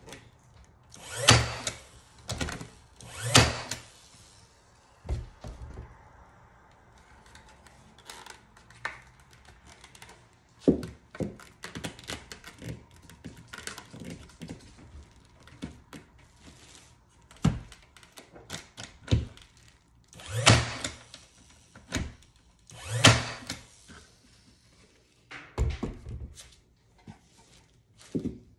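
Cordless 20V brad nailer driving brads into a wooden picture frame. There are two sharp shots a couple of seconds apart near the start and two more about two-thirds of the way through. Lighter knocks and clatter come from the frame being handled in between.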